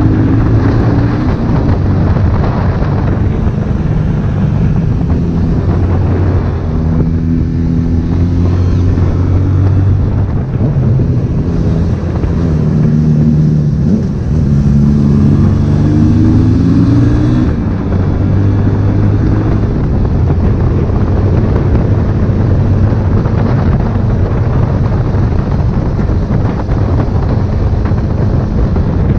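Honda CB1000R's inline-four engine running under way, its pitch climbing and dropping several times as the bike accelerates and changes gear. Wind rushes over the microphone throughout.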